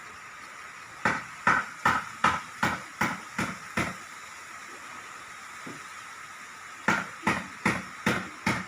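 Two runs of sharp knocks, about two and a half a second, over a steady hiss; the first run stops about four seconds in and the second starts near the end.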